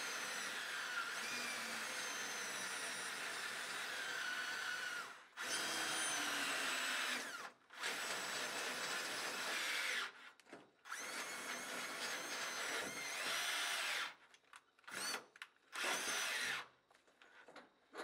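Cordless drill driving a 9 mm stainless-steel drill bit through a stainless steel sheet to enlarge a pilot hole. It runs for about five seconds, then in several shorter runs with brief stops, and ends in a few short bursts.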